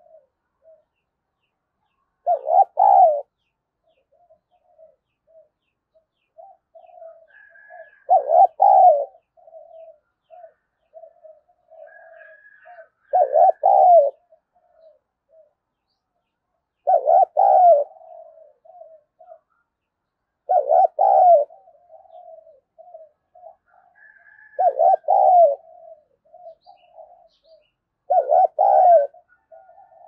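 Spotted dove cooing: a loud coo phrase about every four seconds, seven in all, with softer short notes in between.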